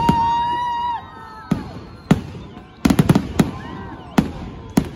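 Aerial fireworks shells bursting in a series of sharp bangs, several in quick succession about three seconds in. People in the crowd cheer, and a loud held high note sounds through the first second, dropping in pitch as it ends.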